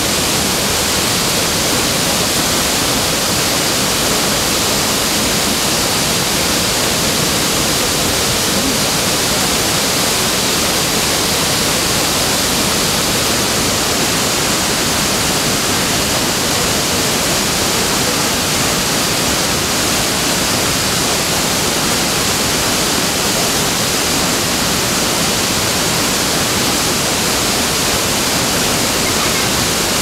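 Waterfall in flood, swollen far above its usual flow: a steady, loud rush of white water pouring over rocks.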